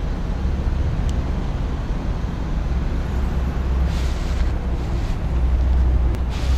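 Steady low rumble of outdoor background noise, with a few faint light taps in the second half.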